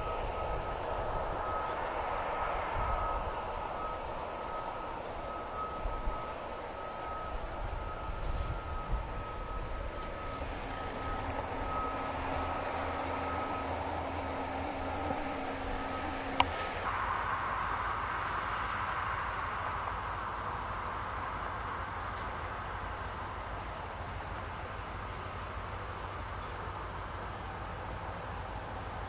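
A steady chorus of insects chirping rapidly, over the low rumble of diesel locomotives. A single sharp click comes about sixteen seconds in.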